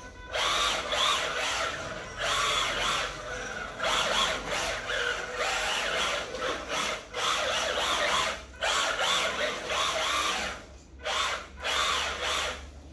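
Small electric motor and drivetrain of a remote-control drift car whirring in bursts as the throttle is worked, dropping out briefly several times.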